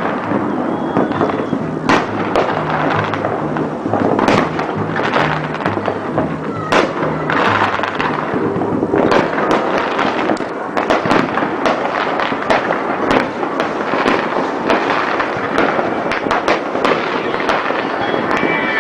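Dense fireworks going off: rapid, overlapping bangs and continuous crackling. Music with a low bassline runs underneath.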